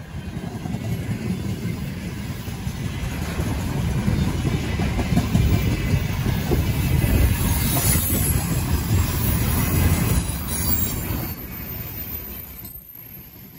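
A train passing close by at speed, its wheels and cars rumbling and clattering on the rails. The sound builds over the first few seconds, is loudest in the middle, and fades away after about eleven seconds.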